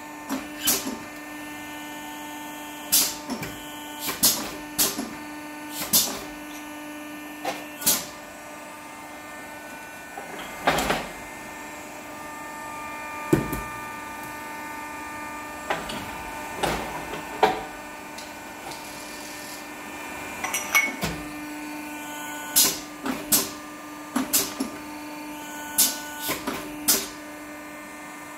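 Hydraulic tube end-forming machine running with a steady hum while a stainless exhaust tube is reduced on it, with repeated sharp metallic clicks and knocks from the tube and tooling being handled every second or two.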